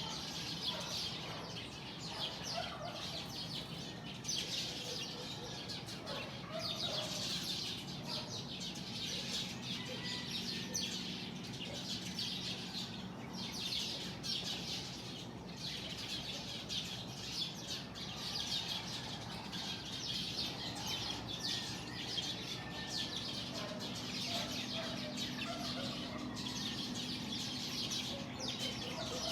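A flock of small birds chirping continuously in a dense, overlapping chorus, with scattered lower calls among the high chirps.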